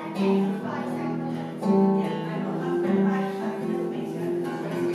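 Music: a melody of held notes on a plucked string instrument.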